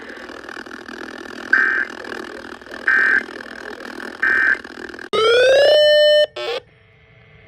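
Three short buzzy data bursts of an Emergency Alert System end-of-message code, about 1.4 seconds apart, over a steady radio static hiss, marking the end of the severe thunderstorm warning. About five seconds in, a loud electronic rising sweep settles into a held synth tone, which cuts off after about a second and is followed by a short blip.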